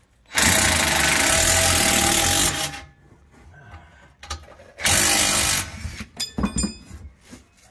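A power tool runs under load in two bursts, about two seconds and then under a second, cutting into the old exhaust pipe. A few short metallic clinks follow near the end.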